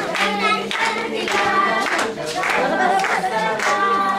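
A song sung by a group of voices, with hand clapping.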